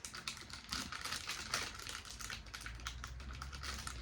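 Wax lips candy in its plastic packaging being handled: a quick, uneven run of small crisp crackles and clicks.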